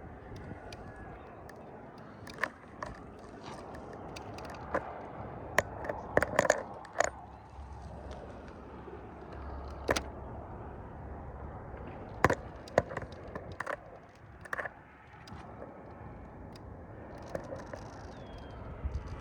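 Axial SCX10.3 early Bronco RC crawler working over rocks: its brushless motor runs low under a steady hum while the tyres and chassis knock and scrape on the rock, with many sharp clacks scattered throughout.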